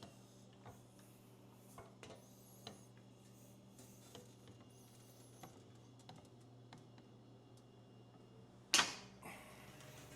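Scattered light clicks and taps of a sheet-metal patch panel being handled and fitted, with one louder knock about nine seconds in, over a steady low hum.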